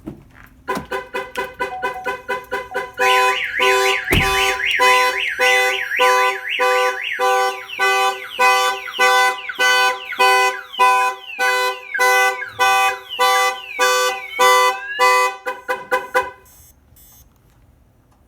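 Viper aftermarket car alarm going off after a door is opened: the siren cycles through warbling and rising tones over pulsed honks of the Silverado's horn, several honks a second, then cuts off suddenly near the end. A thump sounds about four seconds in.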